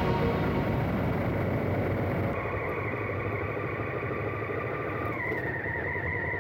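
Motorcycle engine running under way with rushing wind noise, which eases about two seconds in as the bike comes into town traffic. A steady high tone joins at about the same point and steps down in pitch about five seconds in.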